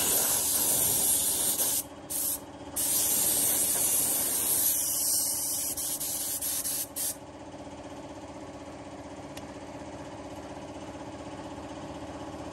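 Gravity-feed spray gun hissing as its trigger is held, cut off twice briefly around two seconds in, then stopping about seven seconds in. An air compressor's steady hum runs underneath and is left alone after the hiss stops.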